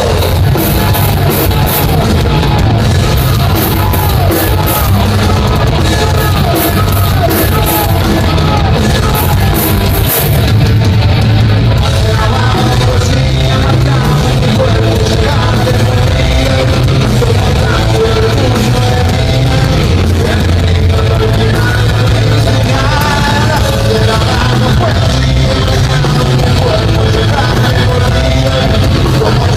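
Heavy metal band playing live: loud, dense full-band music with heavy bass and drums and sung, shouted vocals, with cymbal crashes through the first part.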